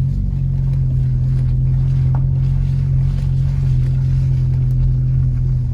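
Car engine running steadily at low speed, a low even drone heard from inside the cabin while driving up a dirt road.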